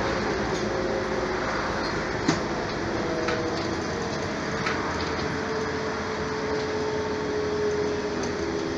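Cabin noise of a moving road vehicle: steady running and road noise with a motor whine that slowly falls in pitch. A sharp click about two seconds in.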